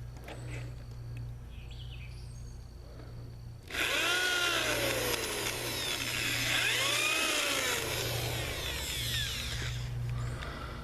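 Power drill fitted with a Kobalt drill-and-countersink bit boring two pilot holes for screws into wood, starting about four seconds in and running for about six seconds, the motor pitch rising and falling twice.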